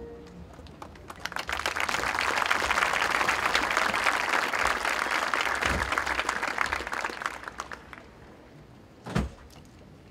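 Crowd applauding, swelling about a second in, then fading away over several seconds. A single short thump near the end.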